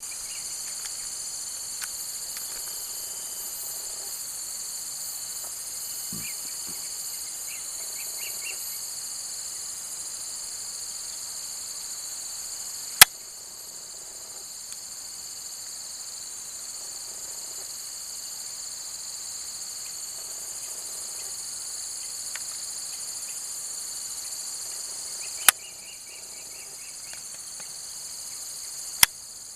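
Steady high-pitched chorus of insects such as crickets, with a few faint short chirps now and then. Three sharp clicks stand out above it, the first about halfway through and two more near the end.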